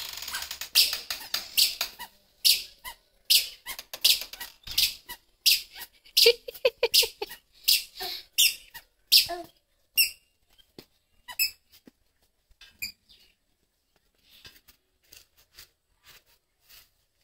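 Child's squeaky sandals squeaking with each step of a toddler walking, about two to three squeaks a second. They stop about ten seconds in, with only a few faint squeaks after.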